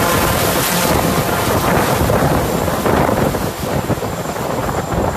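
Twin-engine turboprop plane at takeoff power, accelerating down the runway away from the microphone: a loud, steady rushing of engines and propellers, with a thin high whine joining about halfway through.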